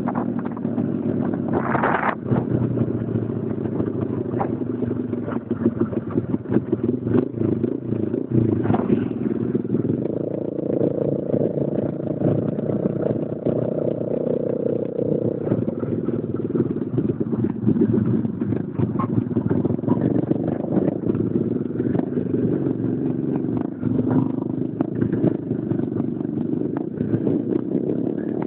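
Motorcycle engine running at road speed, heard from on board, with wind rushing and buffeting the microphone. The engine note rises for about five seconds partway through, then settles back.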